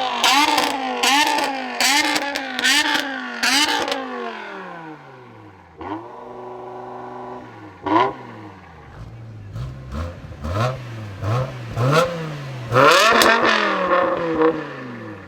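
BMW engine being revved hard in quick repeated bursts, then falling back to a steady idle. A run of short throttle blips follows, and one more hard rev that dies away near the end.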